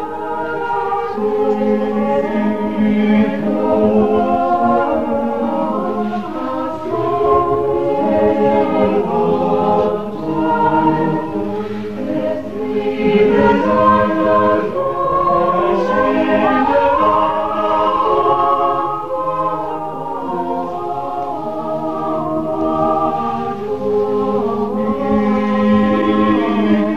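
Choir singing in several voice parts, holding and moving through sustained chords.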